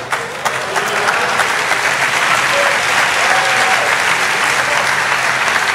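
Congregation applauding: a steady, dense wash of clapping from a large audience, with a voice or two faintly calling out midway.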